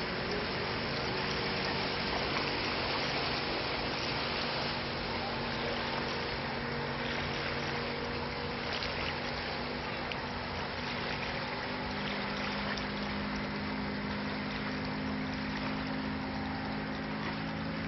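Two motorboats' engines running steadily as the boats move off along the river, a low drone over a steady hiss. About twelve seconds in, the drone picks up an extra, slightly higher note.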